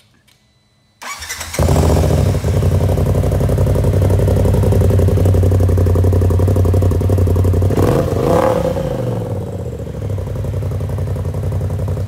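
Polaris RZR XP Turbo's turbocharged twin-cylinder engine starting about a second in and then idling loudly through a Force Turbos Untamed aftermarket exhaust. There is a brief change in the engine note about eight seconds in.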